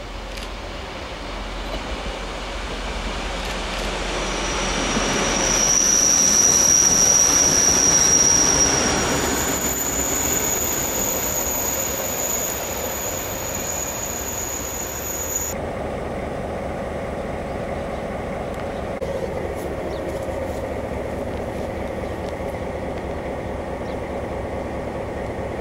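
Lollandsbanen diesel locomotive M36 and its train passing close by, the wheels squealing high on the rails as it grows loud and then fades. About two-thirds of the way through the sound switches abruptly to the locomotive's diesel engine running steadily.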